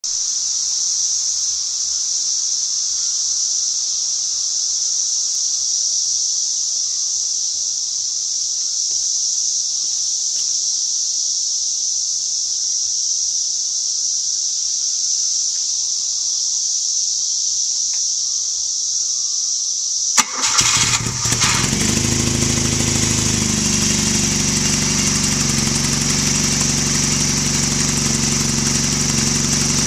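A steady high-pitched hiss, then about two-thirds of the way in the early 1977 BMW R100RS's air-cooled boxer twin with 40 mm big-bore exhaust pipes cranks briefly, catches on a cold start and settles into a steady idle.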